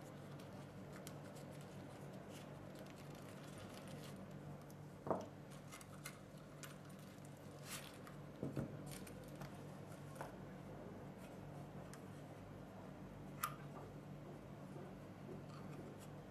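Faint handling noises: soft rustling and a few sharp plastic clicks and knocks, the loudest about five seconds in and near thirteen and a half seconds, as a charger, a USB cable and other small parts are taken out of a fabric zippered case. A steady low hum lies underneath.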